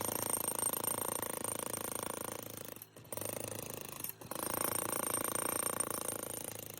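Jackhammer breaking up old concrete, running in a fast steady rattle that stops briefly twice, a little before three seconds in and again just after four.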